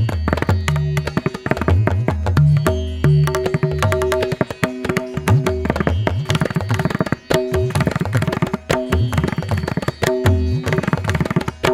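Background music: rapid hand-drum strokes over held melodic notes.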